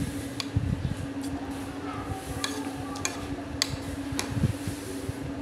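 A spoon clinking and scraping against a plate about six times while someone eats, with chewing and mouth sounds between the clinks, over a steady low hum.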